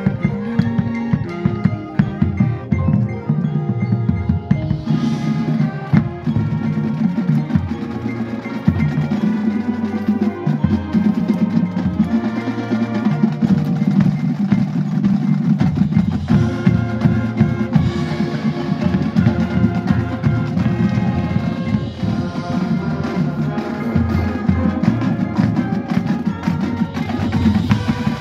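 Marching band playing a field show: held chords from the winds over a steady beat from the drums, with mallet percussion ringing through.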